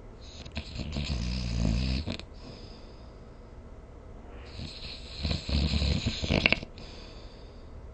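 A sleeping person snoring: two snores about four seconds apart, each lasting around one and a half to two seconds.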